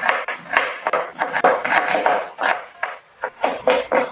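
Chef's knife chopping a red onion on a plastic cutting board: a quick, steady run of chops, about four or five a second.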